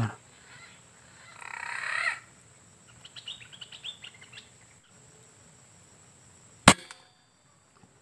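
Birds calling in the surrounding trees, with a quick run of high chirps midway, then a single sharp crack of an air rifle shot near the end.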